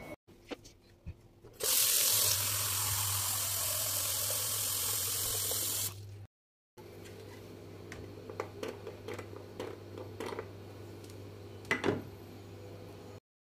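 Water running hard from a tap for about four seconds, then shut off. After a cut come scattered light clicks and knocks over a faint steady hum, with one sharper knock near the end.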